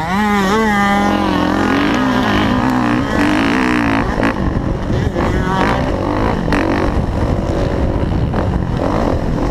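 Kawasaki KX450F single-cylinder four-stroke motocross bike engine under throttle on the track: its pitch climbs in the first second, holds steady for a few seconds, then turns rougher and uneven.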